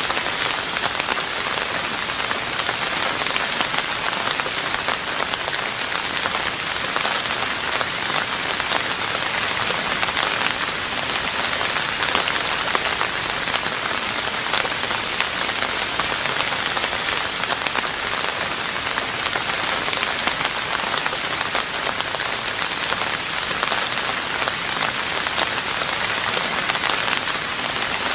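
Steady rain falling on a roof, an even hiss of many drops that keeps up without let-up.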